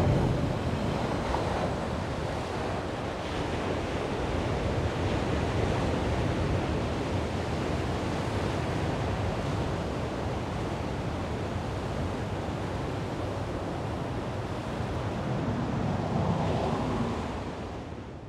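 Surf breaking and washing on a shingle shore, a steady roar of waves with wind on the microphone; a low rumble dies away in the first second or two, and the sound fades out at the end.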